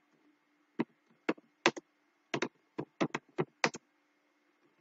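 Computer keyboard keys clicking as code is typed: about ten separate keystrokes at an uneven pace, over a faint steady hum.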